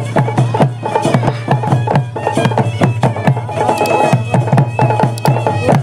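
Gudum baja folk band playing: hand-beaten drums keep a fast, even beat of about three to four strokes a second under a steady, held reed-pipe melody.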